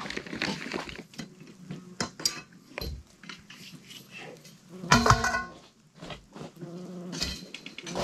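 Metal tent-frame poles clinking and knocking while a heavy canvas wall tent is taken down, with scattered irregular clatter. A short, loud pitched sound rings out about five seconds in.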